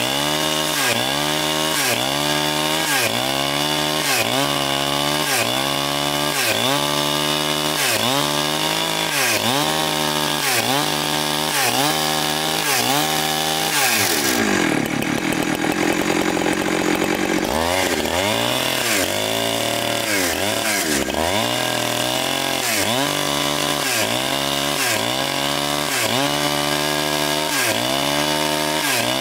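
Large chainsaw cutting through a huge log, its engine pitch dipping and recovering under load about one and a half times a second. About halfway through it revs up to a high, steady pitch off the cut for a few seconds, then bogs back into the rhythmic cutting.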